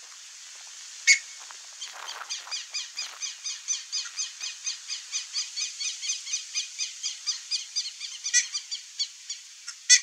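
Buff-necked ibis calling: a long, rapid run of repeated calls, about four a second, with a sharp louder call about a second in and another at the very end.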